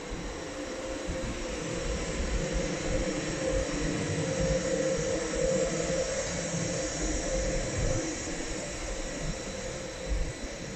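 Siemens Taurus class 182 electric locomotive and its coaches rolling slowly along the platform: a steady electric whine over a low rumble, loudest in the middle.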